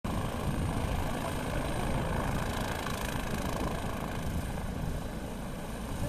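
Helicopter hovering close by, its rotors and engine a steady, noisy rumble.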